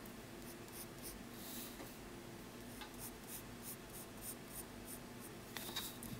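Wooden graphite pencil sketching lightly on paper: a run of short, faint scratching strokes, with a couple of sharper scratches near the end.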